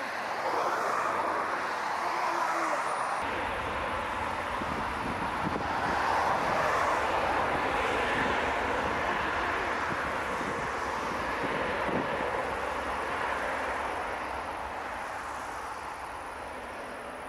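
Jet engines of an Airbus A380-800 passing close by on the runway: a steady rushing noise that swells to its loudest about six seconds in and eases off toward the end. A deeper rumble joins about three seconds in.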